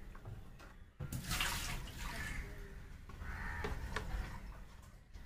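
Water splashing and sloshing in a plastic basin as a wet Shih Tzu puppy is dipped and held in warm bathwater, with a sharper splash about a second in.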